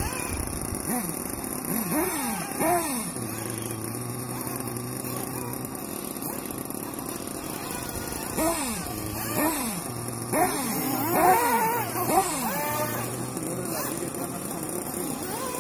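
Radio-controlled off-road buggy's engine revving up and down as the car drives the track, in quick rising and falling bursts: a few about two seconds in, then a longer run of them from about eight to thirteen seconds. A steady low hum runs underneath.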